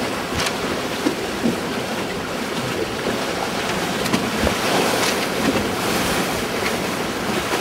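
Steady rush of water along the hulls of a Catri 24 trimaran moving fast under sail, mixed with wind buffeting the microphone.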